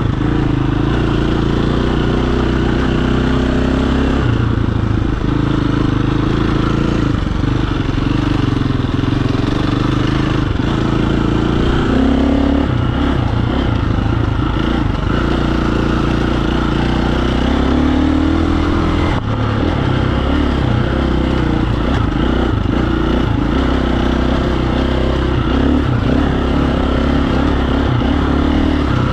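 KTM dual-sport dirt bike engine running while ridden on a trail, its note rising and falling several times with throttle and gear changes.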